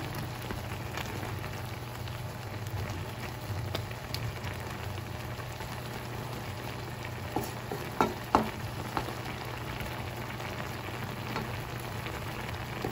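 Garlic butter shrimp frying in an aluminium wok, a steady sizzle. A wooden spatula stirs and knocks sharply against the pan a few times, loudest about eight seconds in.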